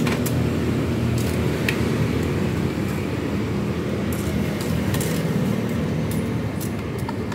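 A steady low rumble with scattered sharp metal clicks, as tongs and utensils knock against a steaming noodle-boiling pot.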